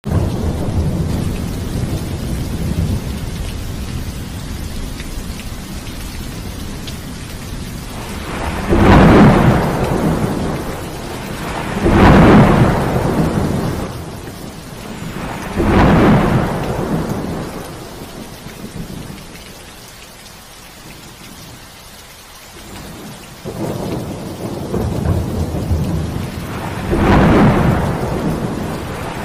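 Heavy rain falling steadily in a thunderstorm, with four loud peals of thunder, about nine, twelve, sixteen and twenty-seven seconds in, each rumbling away over a few seconds. The rain eases for a few seconds after about twenty seconds.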